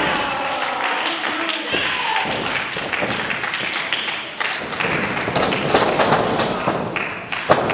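Thuds and taps of wrestlers moving on a wrestling ring, mixed with crowd voices calling out; one sharper thud near the end.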